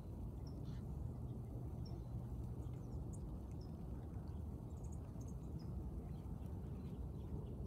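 Steady low outdoor rumble, with faint short high chirps from a small bird repeating about every second and a half.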